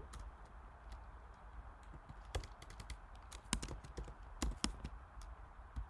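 Faint, irregular keystrokes on a computer keyboard, typing a search term, with the taps coming more often from about two seconds in.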